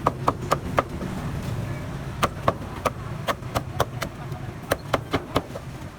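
Cleaver chopping on a wooden block: a short run of sharp strikes, a pause of over a second, then a longer run, about four strikes a second. A steady low street rumble underneath.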